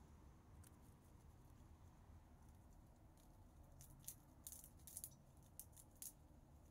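Gray squirrel gnawing at a peanut shell: faint, quick crackling clicks, bunched mostly between about four and six seconds in, over near silence.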